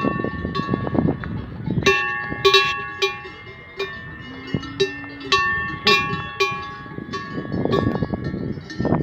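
Cowbells on grazing cattle clanking and ringing irregularly, several overlapping bells of different pitch, busiest from about two seconds in until near the end.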